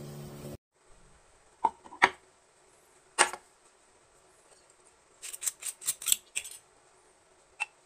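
Sharp clicks and taps of a glass bottle and tableware being handled on a table: a few single clicks, then a quick run of about seven clicks midway, then one more near the end. Before that, a voice-like sound cuts off abruptly about half a second in.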